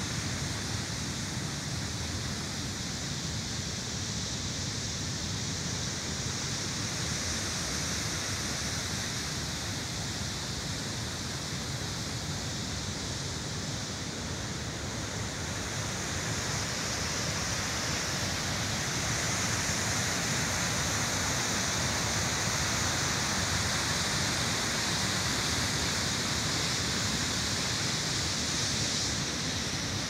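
Mountain stream rushing and splashing over rocks, a steady hiss of white water that grows a little louder past the middle.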